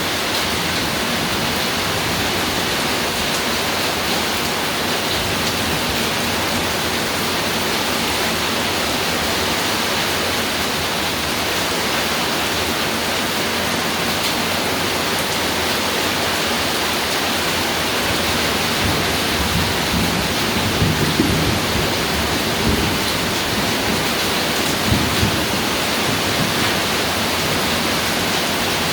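Steady heavy rain pouring onto a roof. Low thunder rumbles in twice, more than halfway through.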